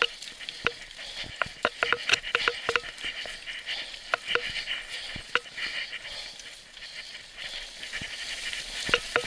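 Mountain bike rolling down a rough dirt forest singletrack: a steady hiss of tyres on the trail, broken by frequent sharp rattles and knocks as the bike jolts over roots and stones, thickest in the first few seconds and again near the end.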